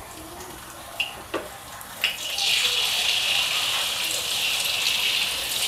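Eggs frying in hot oil in a wok: a couple of light clicks, then a sudden start about two seconds in of a steady, loud sizzle.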